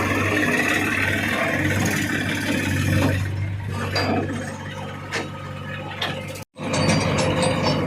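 Diesel engine of earth-moving machinery running steadily, with scattered metallic clanks and knocks. The sound drops out for a split second about six and a half seconds in.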